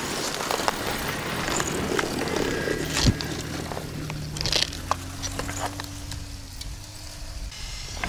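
SUV on snow tracks driving through snow: a steady low engine hum, with scattered crackles and clicks from the tracks working through the snow.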